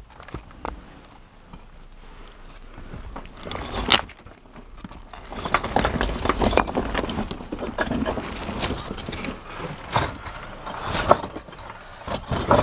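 Footsteps and scraping on a debris-strewn tunnel floor, an uneven run of scuffs and knocks that grows busier partway through, with a sharper knock or two.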